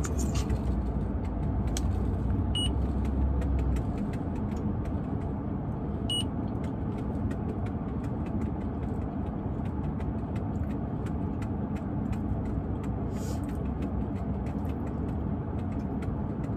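Steady low rumble of a car idling, heard inside the cabin, with faint irregular crunches of potato chips being chewed.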